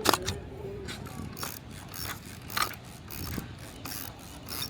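Kowa Six medium format film camera being worked: a sharp click at the start, then a series of mechanical clicks and ratcheting strokes, as of the shutter firing and the film being wound on.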